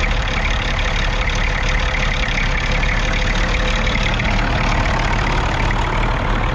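Perkins P6 six-cylinder diesel engine of a 1950 Fordson Major E27N tractor running steadily.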